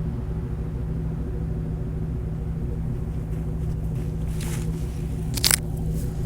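2004 Pontiac GTO's 5.7-litre LS1 V8 idling steadily through an SLP Loudmouth II exhaust with stock manifolds and no catalytic converters or resonators. The owner is unsure whether there is an exhaust leak. A short, sharp click sounds about five and a half seconds in.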